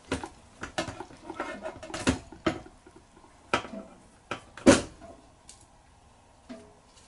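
Scattered small clicks and metallic knocks as parts of a VFR400R carburetor and its linkage are handled over a stainless steel tray. The sharpest knocks come about two seconds in and again just before five seconds.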